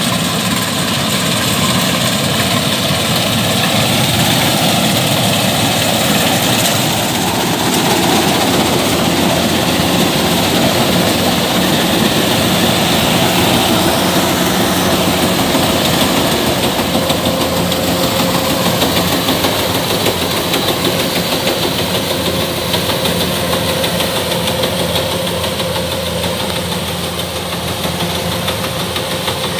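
Kubota DC-105X combine harvester running while harvesting rice: its diesel engine and threshing machinery make a steady, loud mechanical din that stays even throughout.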